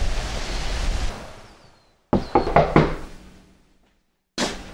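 A quick run of about four knocks on a front door, heard from inside the house. Before the knocks, steady outdoor wind noise fades away.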